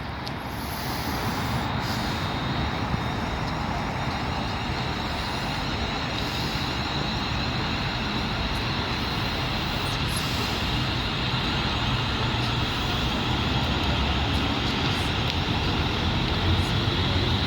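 Train on the line, a steady rumble that grows slowly louder, with a thin high whine coming in after a few seconds.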